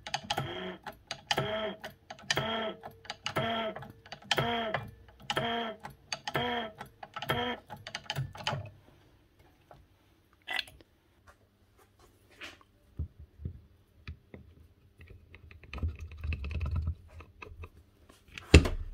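A press squeaking in about eight even strokes, roughly one a second, as a 6201 ball bearing is pressed onto the armature shaft of a Makita HR0870C rotary hammer. A few light clicks and a short low hum follow near the end.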